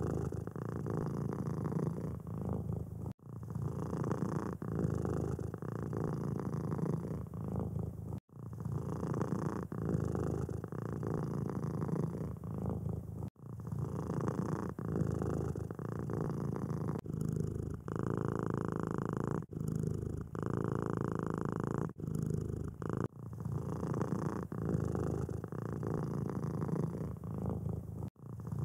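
Domestic cats purring close to the microphone: a steady, pulsing purr. Every few seconds it breaks off briefly and starts again.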